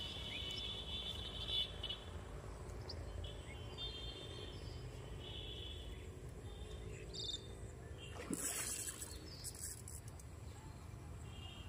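Rural outdoor ambience: short high buzzing calls of insects or birds recur every second or two over a steady low rumble, with one brief burst of noise about eight seconds in.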